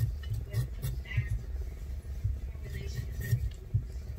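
Background music with a steady low beat and faint vocals, over soft scrapes of a kitchen knife peeling a raw potato.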